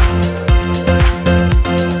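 Background music with a steady beat of about two beats a second over a sustained bass line and chords.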